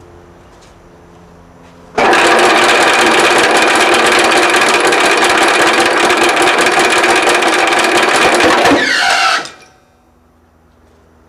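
Three-phase air compressor starting abruptly about two seconds in and running with a loud, rapid mechanical clatter for about seven seconds, its oil drained as it is run to destruction. It then winds down with a falling pitch.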